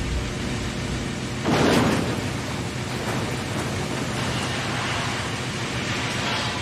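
Animated sound effects of a crane grab hauling a clump of scrap metal: a steady rumbling wash of noise, with a louder rushing surge about a second and a half in.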